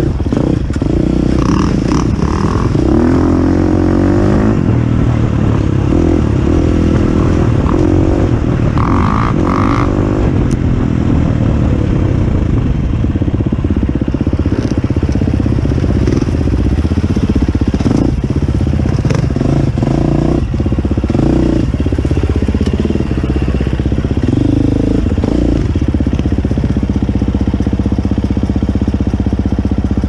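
Off-road dirt bike engine on slow, technical rocky trail, its revs rising and falling over and over as the throttle is worked, with scattered knocks and clatter from rock contact. Near the end it settles into a steadier low running.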